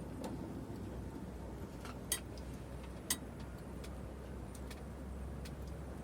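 Small USB desk fan running with a steady low whir, with two sharp clicks about two and three seconds in.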